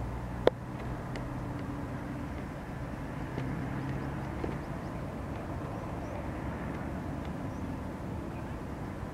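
Steady, distant hum of trains at a station: electric passenger locomotives and their coaches, heard from far off. A single sharp click comes about half a second in.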